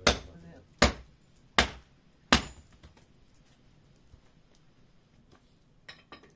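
Four sharp chopping blows, about one every three-quarters of a second, then they stop; a couple of faint clicks near the end.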